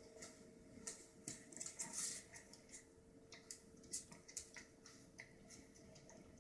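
Faint, irregular clicks and scuffles of a toy poodle and a cat play-wrestling, busiest about two seconds in, over a faint steady hum.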